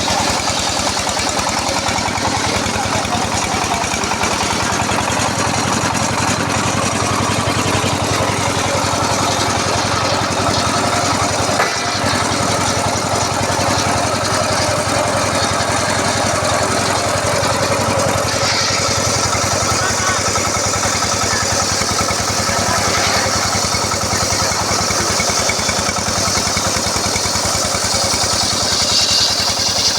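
Engine-driven circular sawmill running steadily as it saws a teak log, the engine's even hum under the blade's hiss. The hiss grows louder about two-thirds of the way through.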